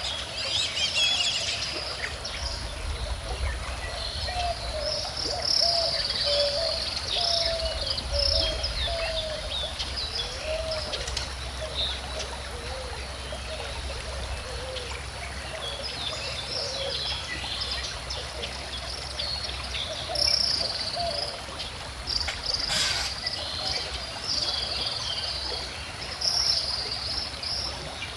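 Birds chirping and singing in bursts over the steady flow and trickle of a gentle stream, with one sharp click about two-thirds of the way through.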